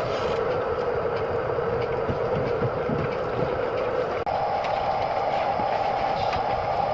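Steady rain falling, a constant hiss with no single drops standing out; the sound changes suddenly about four seconds in, as if from one rain shot to another.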